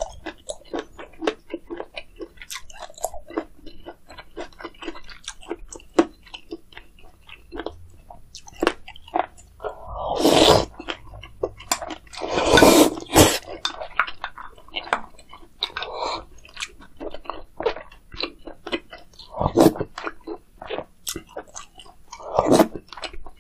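Close-miked eating of spicy meat gukbap (Korean meat-and-rice soup) with kimchi: steady wet chewing and mouth clicks, with loud slurping of broth from a small bowl in the middle.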